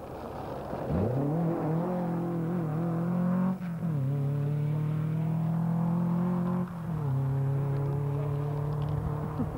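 Ford Escort rally car's engine held at high revs as the car runs off the road through heather: the note climbs sharply about a second in, then holds steady, dipping briefly twice, near the middle and about two thirds through.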